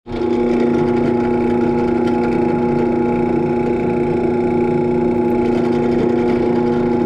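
Benchtop drill press motor running with a steady hum while its bit bores into a wooden block.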